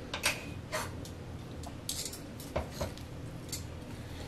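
Metal kitchen tongs clicking and tapping against a foil-lined crock pot as ribs are lifted out: several separate sharp clicks spread over the few seconds.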